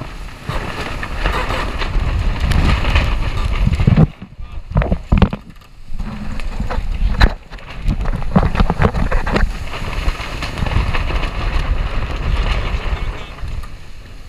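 Strong wind buffeting the microphone over the rush of water and spray along a Class 40 racing sailboat heeled over in storm conditions. Between about four and six seconds in the noise drops briefly, broken by several sharp knocks, with another sharp knock just after.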